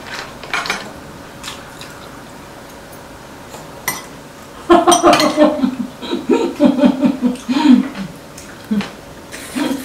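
Chopsticks clicking against ceramic side-dish bowls at a meal table, with one sharp clink a little before halfway. Then a voice sounds for about three seconds, unworded.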